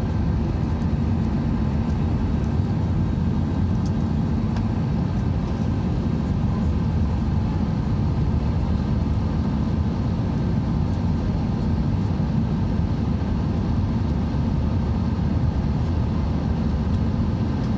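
Airliner cabin noise in flight: the steady, even drone of the jet engines and rushing air heard at a window seat, heaviest in the low range.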